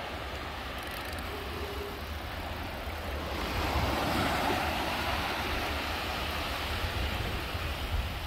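Wind buffeting the microphone of a phone carried on a moving bicycle over wet beach sand, with surf washing behind; the rumble swells about three and a half seconds in.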